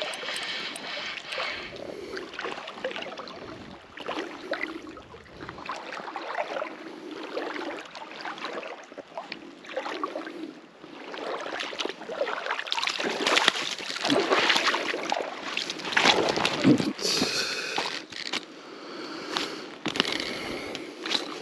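Water sloshing and splashing, growing louder with a run of sharp splashes from about 13 to 17 seconds in, as a hooked pike is played and brought in.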